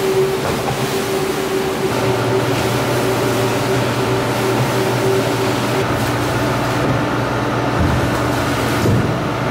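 Rug-washing machines running steadily: a rotary floor scrubber working shampoo into a wet rug and a pressure-washer wand spraying water, a constant hum over a hiss. The hum drops in pitch about two seconds in.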